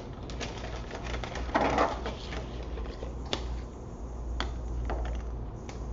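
Handling noise: a paper instruction sheet rustling as it is picked up and moved, with a few sharp clicks and taps from handling a small plastic saliva-collection tube and its cap.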